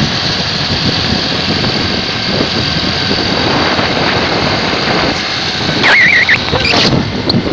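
A motorcycle moving at speed, its engine running under steady wind rush over the microphone. About six seconds in, a short wavering high note sounds briefly, followed by a few sharp knocks near the end.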